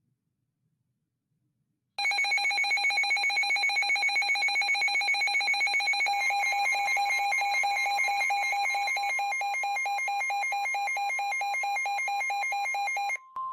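NOAA Weather Radio receiver sounding its alert: a loud, rapidly pulsing electronic alarm starting about two seconds in. A few seconds later the broadcast's steady warning tone joins underneath it. The pulsing alarm cuts off near the end, leaving the steady tone, which signals a National Weather Service warning about to be read.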